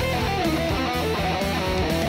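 Home-built electric guitar run through POD Farm amp modelling, playing an improvised lead line of held, wavering and bent notes over a metal backing track in E minor with drums and bass.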